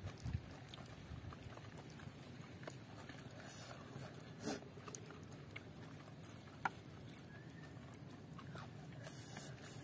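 Faint eating sounds of people chewing spicy chicken feet, with a few short lip smacks and wet clicks scattered through.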